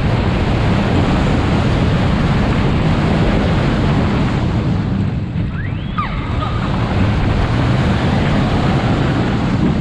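Strong wind buffeting the microphone and the rumble of a steel roller coaster train running at speed through its track, heard from a seat on the train, with a brief faint high squeal about six seconds in.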